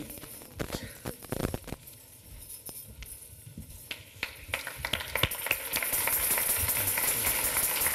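Scattered claps and knocks, then an audience breaking into applause a little past halfway, which grows louder and holds.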